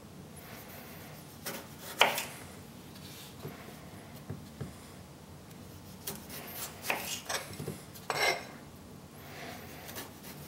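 Kitchen knife cutting the ends off small raw potatoes on a wooden chopping board. A sharp knock of the blade on the board comes about two seconds in, the loudest sound, then a run of cuts and taps from about six to eight and a half seconds.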